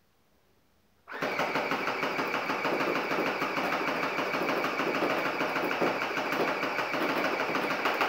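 AGF FR 5.56 electric airsoft rifle firing on full auto: one long, continuous rapid-fire burst of its motor and gearbox cycling. It starts abruptly about a second in and stops at the end when the trigger is released, the magazine now empty.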